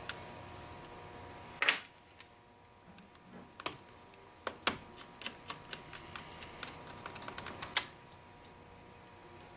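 Clicks and light taps of small laptop parts and tools being handled on an open MacBook Pro: one sharp click under two seconds in, a scatter of smaller ticks and taps through the middle, and another sharp click near the end.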